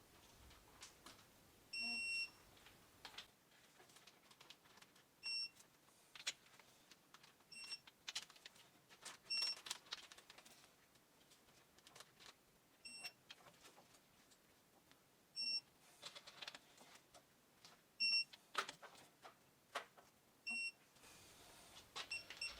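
Digital torque adapter beeping short and high about eight times, each beep marking a main cap stud nut reaching the 40 ft-lb target, between light clicks of a ratchet being worked.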